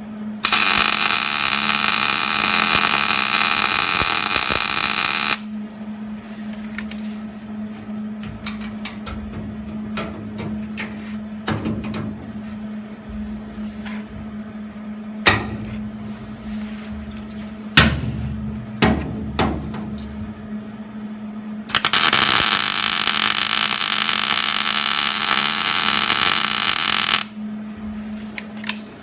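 Two runs of welding on the sheet-metal floor pan, each a steady crackling hiss about five seconds long, one at the start and one near the end. Between them come a few sharp metal knocks, with a steady low hum underneath throughout.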